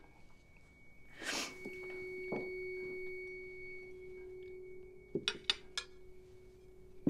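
A steady ringing tone swells in after a short rush of noise about a second in, then holds and slowly fades. Near the end come several sharp clinks of cutlery on plates.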